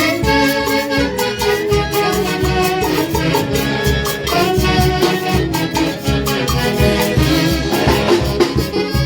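Huayno music played by a band, with a steady, evenly repeating dance beat under a pitched melody.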